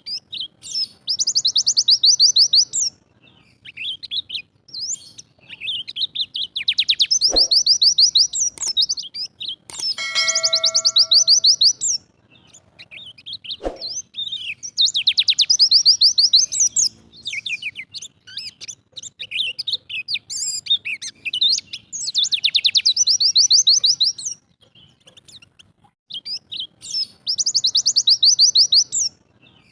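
A white-eye (pleci dakun Bali) singing its rapid 'shooting' song: high, fast-pulsed trilled bursts of about two seconds each, repeated every few seconds. Two sharp knocks and a brief ringing chime-like tone come in between.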